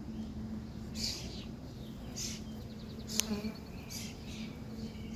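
Honeybees buzzing steadily in a low hum at an opened hive, with wind rumbling on the microphone. Several brief scraping rustles and one sharp click about three seconds in break through the buzz.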